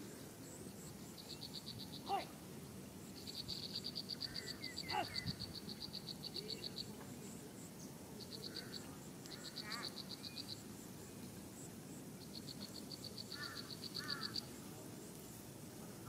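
Outdoor wildlife ambience: rapid pulsed trills come in repeated bursts of one to four seconds, with a few short falling chirps and brief chirp pairs between them.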